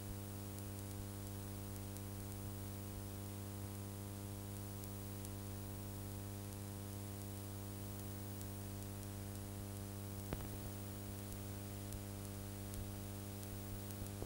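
Steady electrical mains hum with a buzz of evenly spaced overtones under a constant hiss, the background noise of a videotape playback. One faint click about ten seconds in.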